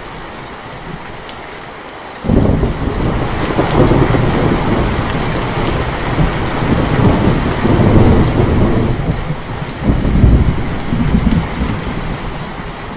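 Steady rain falling, with a long rumble of thunder breaking in suddenly about two seconds in, swelling in several waves and dying away near the end.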